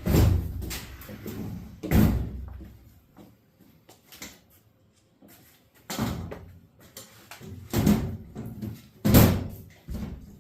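Heavy thumps and knocks, about five spread out with pauses between them, as a clothes dryer is shifted and wrestled into position.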